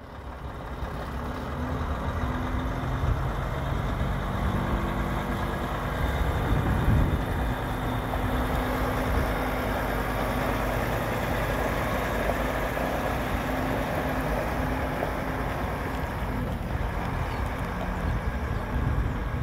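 Diesel engine of a loaded semi-trailer truck pulling away and driving slowly past, a steady engine rumble that builds over the first couple of seconds.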